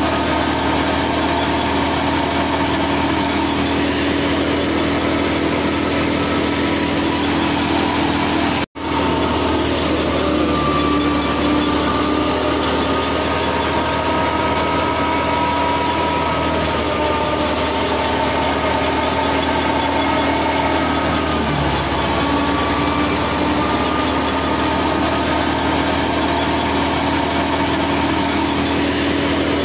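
Miniature model thresher machine running steadily, its small motor and belt-driven drum giving a constant mechanical hum with a few held tones. The sound cuts out for an instant about nine seconds in.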